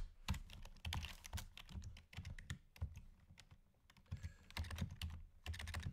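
Computer keyboard typing in quick bursts of keystrokes, with a pause of about a second halfway through.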